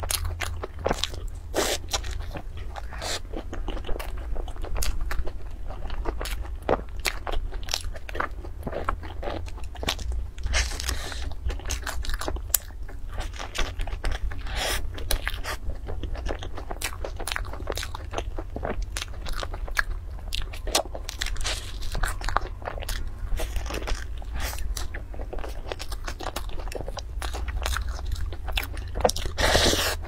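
Close-miked eating of soft pastry buns: steady biting and chewing with many small crunches and crackles. Near the end there is a longer, louder crackle as a bun is torn apart by hand.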